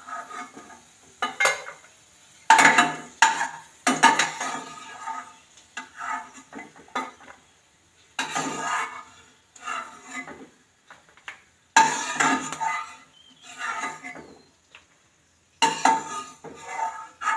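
A steel slotted spoon clinking and scraping against a non-stick kadai and a steel plate as roasted dry fruits are scooped out of ghee and tipped onto the plate. The clatters come one at a time in an irregular string, with short quiet gaps between.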